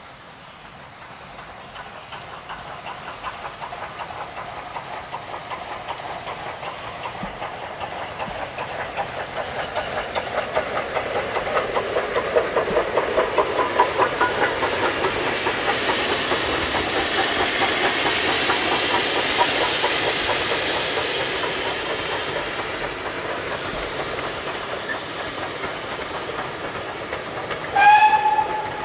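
Steam locomotive hauling a train of coaches past, its rapid exhaust beats growing louder as it approaches, then easing off as the coaches roll by. A short whistle sounds near the end, the loudest moment.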